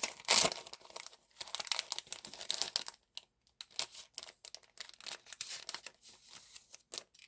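Paper and plastic packaging crinkling and crackling as stationery is unwrapped and handled by hand. There is a loud crackle just after the start and dense crinkling for the first few seconds, then sparser rustles and ticks.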